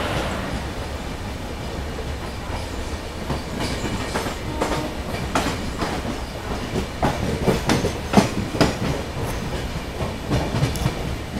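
Wheels of the Brindavan Express coaches clattering over rail joints and points, heard from aboard the train. A run of irregular clicks and knocks rides over a steady rumble, thickest about two-thirds of the way through.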